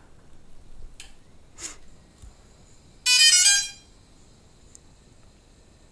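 DJI Phantom 3 Professional powering up: two faint clicks, then about three seconds in a short run of stepped electronic start-up tones. A faint steady high whine goes on afterwards.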